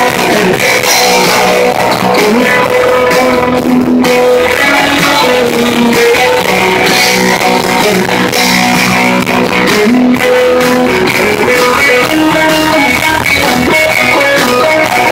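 Live rock band playing loudly and continuously, with electric guitars and bass guitar over drums.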